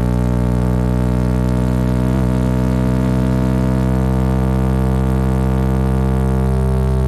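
Honda CB190R's single-cylinder engine running steadily at a constant engine speed, a continuous even drone with no revving.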